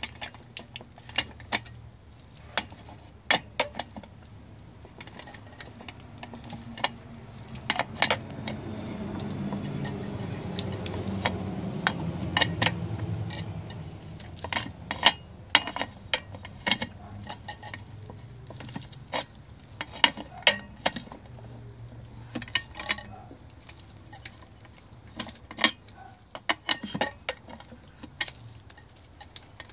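Ratchet of a torque wrench clicking in irregular runs as the outboard's propeller nut is tightened, with metal tool clinks against the nut. A low hum swells and fades in the background in the middle.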